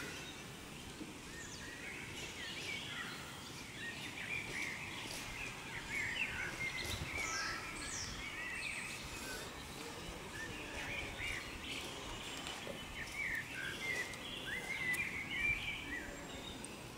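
Wild birds singing and calling, many short chirps and trills overlapping throughout, over a faint outdoor hiss.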